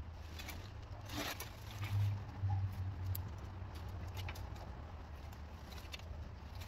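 Dead tree branches being pulled and dragged through brush and roof debris, with scattered cracks, scrapes and rustles of twigs. A longer rustle comes about a second in and a few dull thuds around two to three seconds in.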